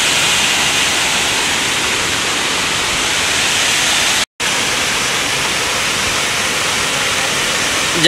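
Waterfall pouring down a steep rock face: a steady rush of falling water, broken by a brief dropout a little after four seconds.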